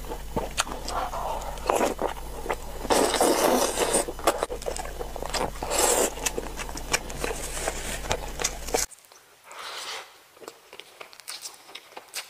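Close-miked eating: wet chewing and smacking with many small mouth clicks, loudest around three and six seconds in, over a low steady hum. About nine seconds in the hum stops and the level drops to quieter, sparser chewing.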